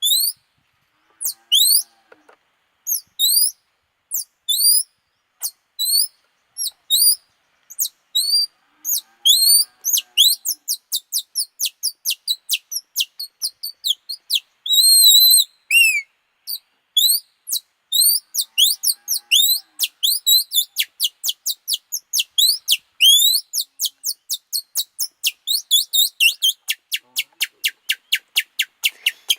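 Bird-call imitation made with a small torn strip of stretched plastic: a series of short, high chirps. They come spaced apart at first, then quicken into fast runs of chirps, fastest near the end.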